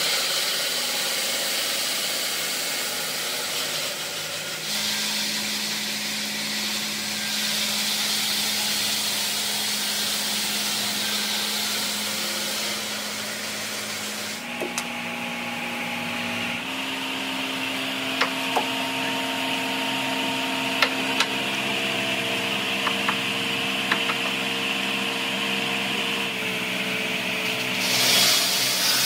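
Large water-cooled circular stone saw cutting through a stone block: a steady grinding hiss with water spray, over a machine hum whose pitch steps to new levels a few times. Several sharp clicks come in the second half.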